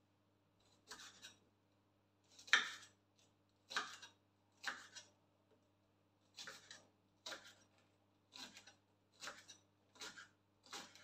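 Kitchen knife slicing green onions on a wooden cutting board: about ten separate cuts, roughly a second apart at first and coming a little faster in the second half, the loudest about two and a half seconds in.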